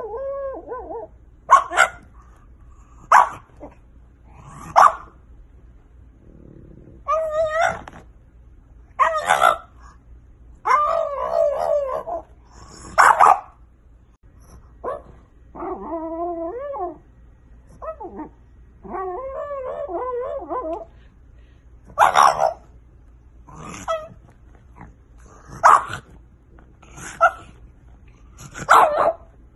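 French bulldog barking and whining in its sleep: short sharp woofs every few seconds, mixed with several longer wavering howl-like whines of a second or two. This is the sleep-barking of a dreaming dog.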